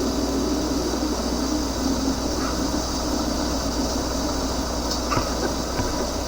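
Unexplained steady noise coming out of loudspeakers: a constant low hum and buzz with a hiss above it, broken by a few brief faint chirps.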